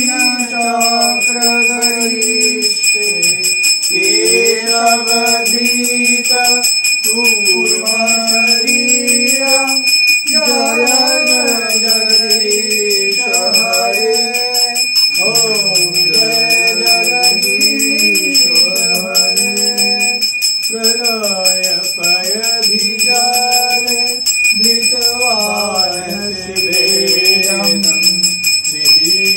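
A hand bell rung continuously through an aarti, its steady high ringing under a voice singing a slow, melodic devotional chant.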